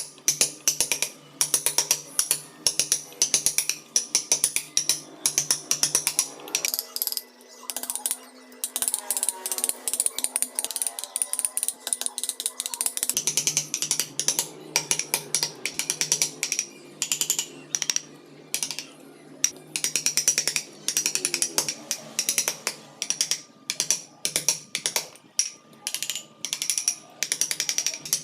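Hand carving tools cutting into wood: a fast, irregular run of sharp clicks and snaps, a few every second, over a faint steady hum.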